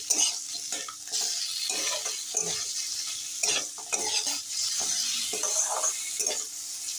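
Metal spatula stirring and scraping raw chicken pieces with chopped onion, garlic, ginger and green chilli in a metal kadai, the food sizzling in hot oil under repeated scraping strokes.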